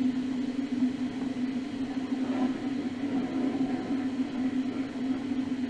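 Bathroom sink faucet running at full flow into the basin and drain, a steady rush of water over a steady low hum. The flow holds without dropping off now that a water softener whose failed resin beads were plugging its outlet ports has been replaced.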